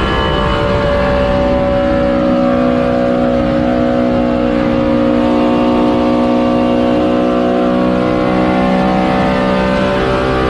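Race car engine running steadily at high revs, a continuous drone whose pitch drifts only slightly up and down.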